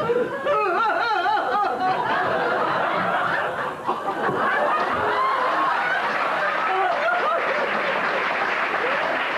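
Theatre audience laughing, many voices at once. In the first two seconds a high, wavering voice rises over the laughter.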